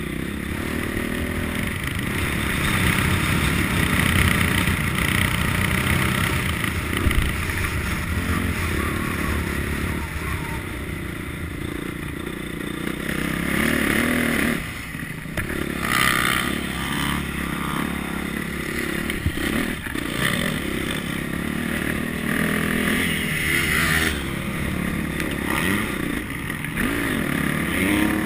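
Motocross dirt bike engine running hard through a lap, revving up and dropping off again and again with the throttle and gear changes.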